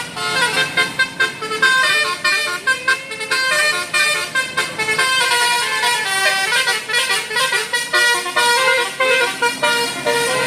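Bus's telolet basuri musical horn playing a quick tune, its notes jumping in pitch several times a second.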